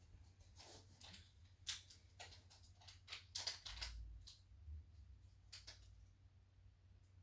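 Faint, irregular clicks and ticks, a dozen or so scattered over several seconds, over a low steady hum.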